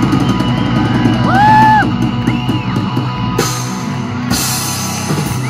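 Live heavy metal band playing the closing bars of a song: electric guitars holding and bending notes over bass and drums. Cymbal crashes come in about three and a half seconds in as the sound starts to die away.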